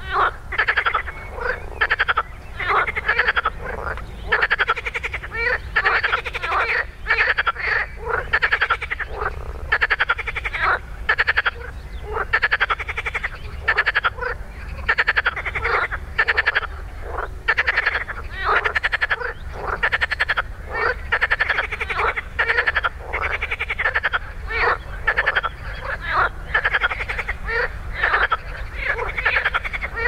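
A chorus of many frogs croaking in shallow reedy water, their rapid pulsed calls overlapping one after another without a break.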